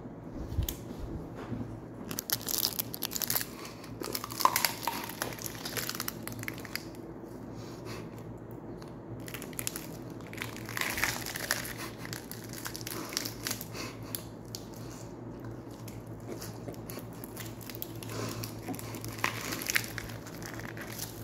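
A person biting into and chewing a raw whole onion close to the microphone: crisp crunching that starts about two seconds in and comes and goes in irregular runs. A low thump right at the start.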